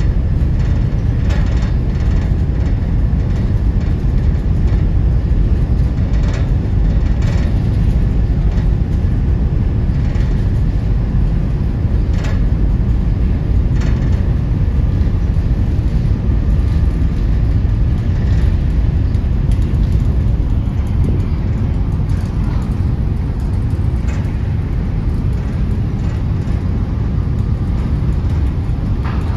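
Heavy trucks running at low speed, a steady low rumble with a few short clanks.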